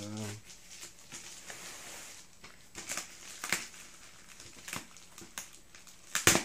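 Plastic bubble wrap crinkling as it is handled and pressed, with scattered sharp crackles and a louder crackle near the end.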